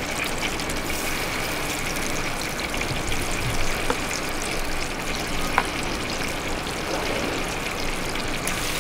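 Chicken pieces deep-frying in a wok of hot oil: a steady, dense sizzle and crackle, with two sharp clicks midway.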